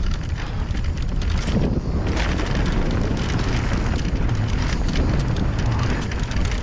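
Wind buffeting the microphone of a mountain bike riding a dirt trail, with a steady low rumble of tyres on the ground and many quick clicks and rattles from the bike over rough terrain.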